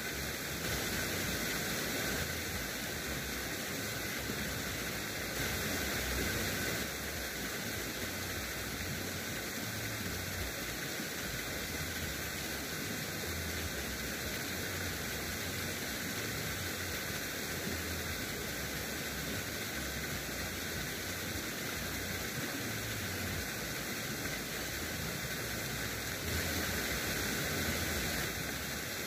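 Steady, even hiss of outdoor background noise with no distinct events, a little louder for a couple of seconds about a second in, around six seconds in, and near the end.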